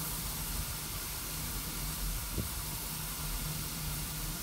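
Peckett saddle-tank steam locomotive standing in steam, hissing steadily, with a low steady hum underneath.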